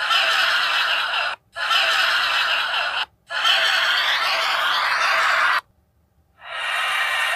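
Odd noises added as a sound effect: a harsh, hissy sound that cuts in and out abruptly in blocks of about a second and a half, with short silences between. Near the end it goes silent for under a second, then comes back steadier.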